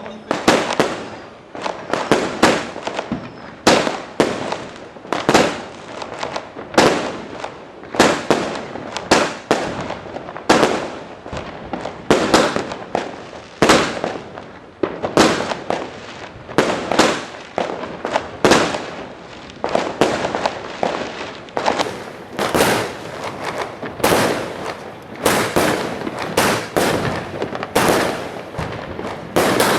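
Fireworks going off: an irregular series of sharp bangs, one or two a second, each trailing off briefly.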